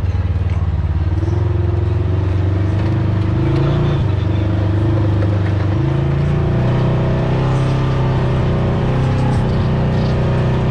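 Side-by-side UTV engine running at low speed, heard from the driver's seat. Its pitch steps up and down a few times as the throttle changes.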